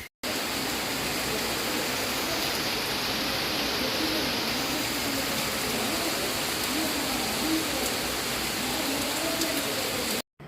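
Steady heavy rain falling, an even rushing hiss with no breaks.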